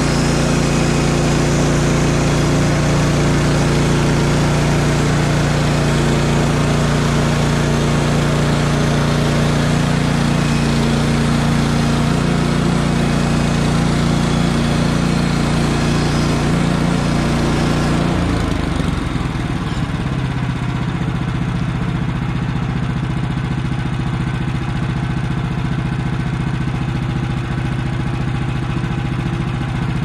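Woodland Mills HM130max bandsaw mill's petrol engine running steadily under load as a freshly fitted, tensioned blade cuts through a cant, cutting effortlessly. About eighteen seconds in the cut finishes and the engine drops to a lower, quieter run.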